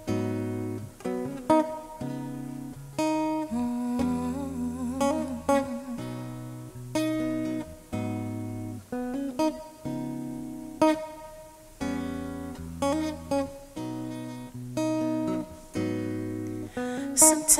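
Steel-string acoustic guitar playing the slow introduction to a gospel song: chords struck and left to ring, a new chord about every second.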